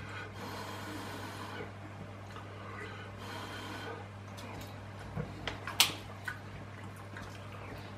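Quiet eating sounds of a man chewing pasta and breathing, over a steady low hum. In the second half come a few sharp clicks of metal cutlery against the pot as he scoops more pasta; the loudest is about six seconds in.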